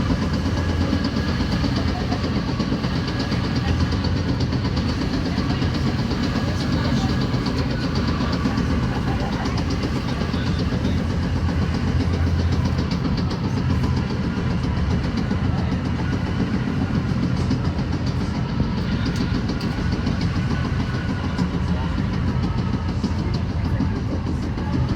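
Metra commuter train running at speed, heard from inside a passenger car: a steady, loud rumble of wheels and running gear that does not change.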